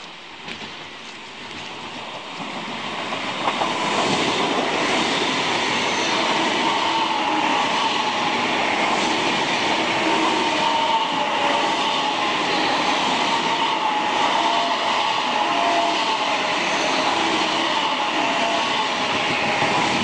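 Steam train behind BR 75 tank locomotive 75 1118 rolling into the station, getting louder over the first few seconds and then steady, with wheels clattering over the points and a wavering metallic wheel squeal.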